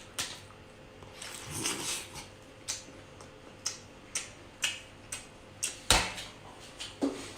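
A person eating a large frozen prawn close to the microphone: short wet clicks and smacks of chewing about once a second, with a louder knock about six seconds in.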